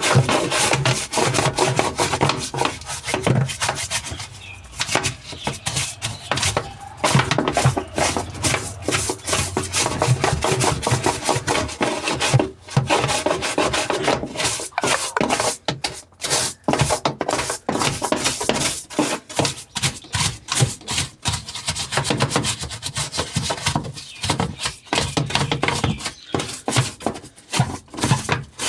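Brush scrubbing grime off a washing machine part in rapid back-and-forth strokes, pausing briefly a few times.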